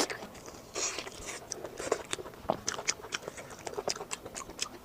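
Close-miked eating: a person chewing and biting food, with many quick wet smacks and clicks at an uneven pace and a brief slurp-like rush about a second in.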